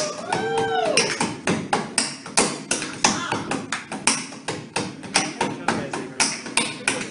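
Tap shoes striking a wooden stage floor in a fast, uneven run of taps, several a second.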